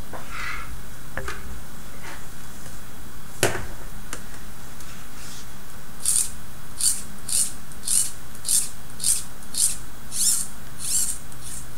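A few light clicks of plastic kit parts being handled, then string rubbing as it is drawn through the plastic pulleys of a Robotis OLLO tower crane, in about ten short scraping strokes, roughly two a second.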